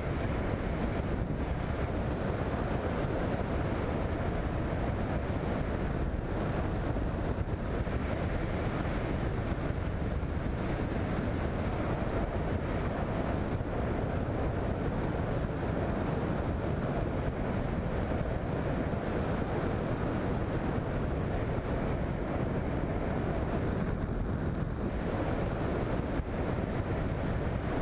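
Steady wind noise rushing over the microphone of a skydiver's body-worn camera during a parachute descent, a constant low rumble without any change or break.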